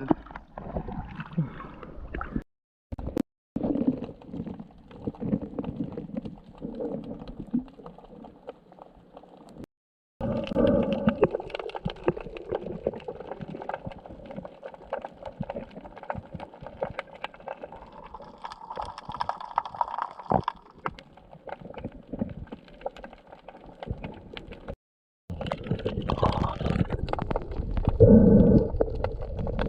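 Muffled underwater gurgling and bubbling of sea water with many small clicks, as heard by a submerged camera; it drops out to silence three times.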